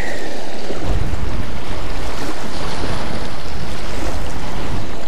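Wind buffeting the microphone over choppy water lapping a rocky shore, a loud steady rush that grows heavier at the low end about a second in.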